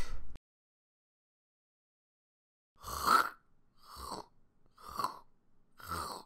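A man's voice dubbing the sound of eating popcorn: four short mouth-made crunching noises about a second apart, starting a little under three seconds in.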